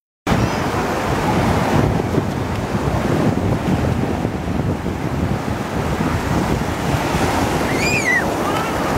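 Ocean surf washing ashore, with wind buffeting the microphone. A brief high call rises and falls near the end.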